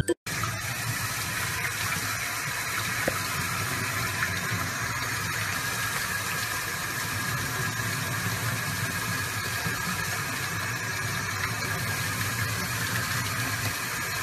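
Water running steadily from a sink faucet, the stream splashing onto a puppy's fur and into the basin.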